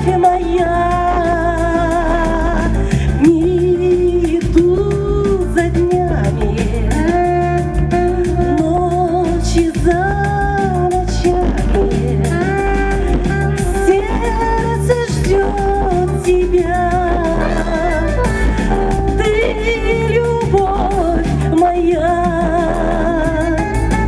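A woman singing a pop-style song with a wavering melody over a backing track with a steady bass beat.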